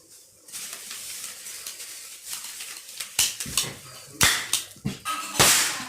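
Small toy Diwali cap gun being fired: a few sharp cracks over the last three seconds, after some light clicking of the gun's mechanism. Its bang is less loud than that of a larger cap-ring pistol.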